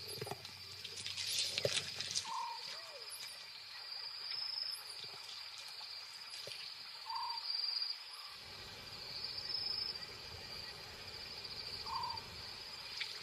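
Night-time bush ambience: a steady high insect trill, with a short bird call repeated three times, about every five seconds.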